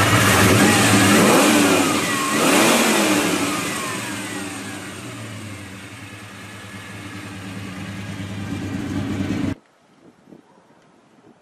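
Chevrolet 377 small-block V8 with dual four-barrel carburetors being revved. It is blipped up and down a few times, the revs fall away, and then they climb slowly again. The sound cuts off abruptly about nine and a half seconds in.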